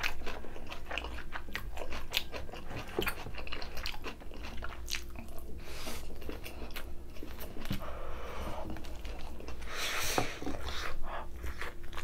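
Close-miked chewing and biting of food, with irregular wet mouth clicks and crunches.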